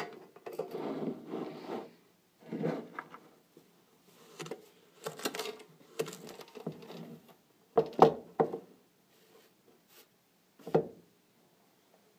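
A metal sugar tin being handled, its lid opened and the tin tipped: irregular scraping and rubbing with a few sharp knocks, the loudest about eight seconds in.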